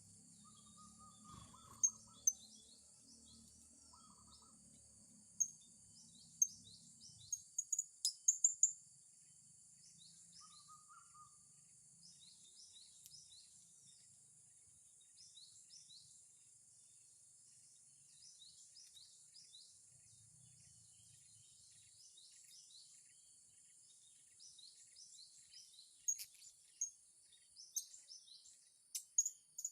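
Blue-crowned hanging parrots (serindit) calling: many thin, high, short falling chirps in quick clusters, with a run of sharper, louder calls about a quarter of the way in and again near the end, over a steady high hiss.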